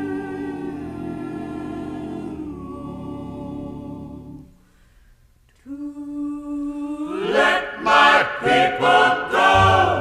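Background music: a choir singing long held chords without instruments, fading out about four and a half seconds in; after a short gap a new choral passage begins and swells louder near the end.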